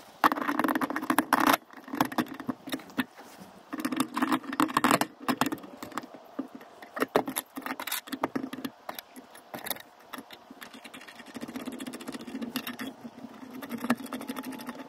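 Small metal hardware (bolts, steel washers and nuts) clinking and tapping in irregular bursts as it is handled and fitted by hand, with knocks of a black metal channel bracket being set down over the bolts.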